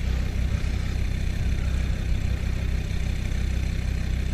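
Off-road SUV engine running steadily at low revs, with no revving.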